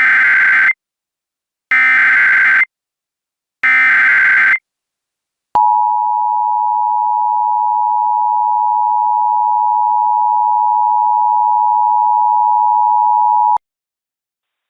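Emergency Alert System tones: three short bursts of SAME header data tones about two seconds apart, then the two-tone attention signal, a steady dual tone held about eight seconds that cuts off suddenly. They mark the start of an emergency alert broadcast.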